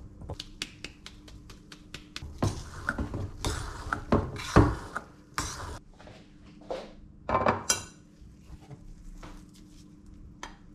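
Kitchenware being handled: a metal skimmer and spoon clinking against stainless steel bowls, and pots and a glass baking dish knocked and set down. It is a run of small clicks and clatters, with the loudest knock about halfway and a short ringing clink about three-quarters through.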